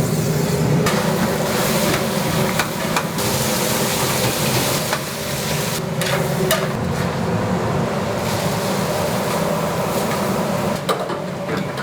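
Commercial kitchen noise: a steady machine hum with scattered clanks and knocks of metal utensils and equipment.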